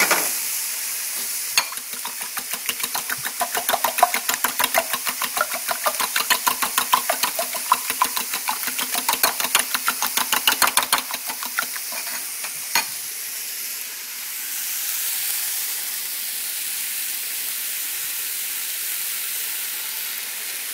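Metal fork beating eggs in a ceramic bowl: rapid, even clinking, about five strokes a second, for about ten seconds. Under it and after it, the steady sizzle of onion, pepper and chicken frying in oil in a pan.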